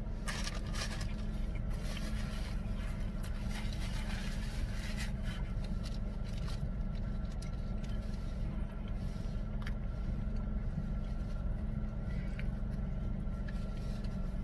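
Steady low hum inside a car's cabin, with scattered soft clicks and rustles from chewing and a paper napkin, most of them in the first few seconds.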